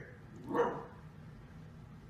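A dog gives a single short, faint bark about half a second in, with quiet room tone around it.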